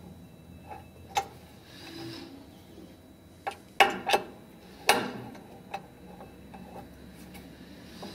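A handful of sharp metallic clicks and clinks as hand tools touch the aluminium bed and printer frame while the bed standoffs are adjusted, the loudest clustered about four to five seconds in.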